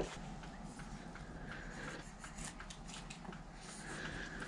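Faint rustling with scattered light ticks and clicks of small objects being handled.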